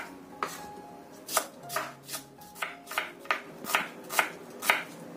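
Kitchen knife slicing shallots thinly on a wooden cutting board. Each cut ends in a sharp knock of the blade on the board, about two to three a second, unevenly spaced.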